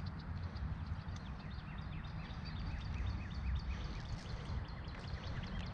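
Wind buffeting the microphone in a steady low rumble, with small birds chirping rapidly and repeatedly in the background.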